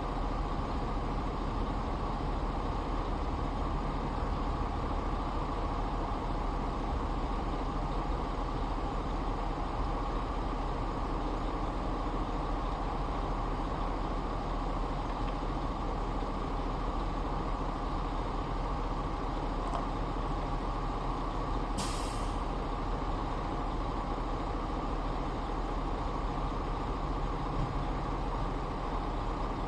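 Steady, unchanging machine noise, with one short hiss about two-thirds of the way through.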